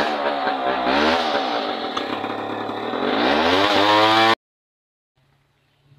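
Two-stroke chainsaw engine running and being revved, its pitch rising and falling, then climbing steeply; it cuts off abruptly about four seconds in.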